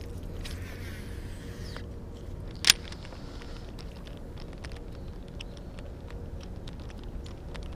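Fishing cast from a boat: the reel spool whirring for about a second and a half as line goes out, one sharp click about a second later as the reel is engaged, then light irregular ticking during the retrieve, over a steady low rumble.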